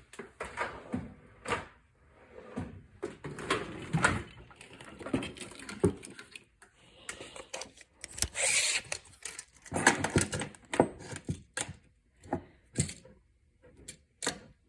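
A tape measure and screwdriver being handled on a bench: a string of clicks and knocks, with a short scraping rush about eight seconds in as the tape blade is run out.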